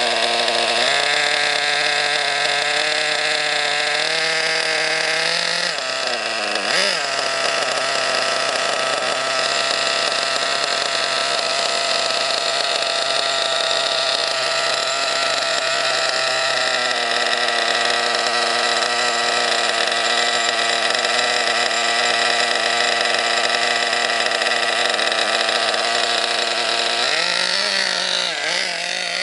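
Redcat Earthquake 3.5's .21 nitro engine idling with a steady, high-pitched buzz. The pitch dips and rises briefly about seven seconds in, drops a step around seventeen seconds, and wavers near the end.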